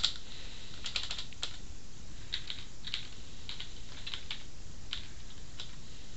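Typing on a computer keyboard: irregular single keystrokes and short runs of keys, with brief pauses between.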